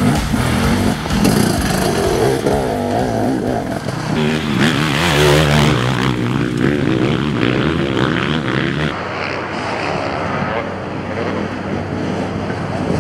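Enduro motorcycle engines revving, their pitch rising and falling with the throttle; the sound changes abruptly about nine seconds in to a steadier, quieter engine note.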